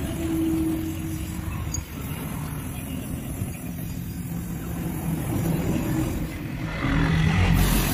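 Motor vehicle engines running nearby as a steady low rumble, with one growing louder near the end.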